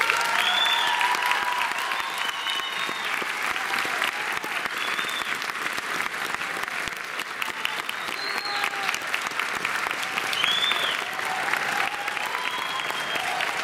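Large audience applauding steadily, dense clapping with scattered high cheers and whoops.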